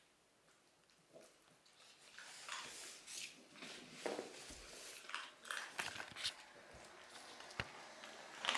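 Cavalier King Charles spaniel crunching dry kibble taken from a hand: faint, irregular crisp crunches and clicks, starting about two seconds in.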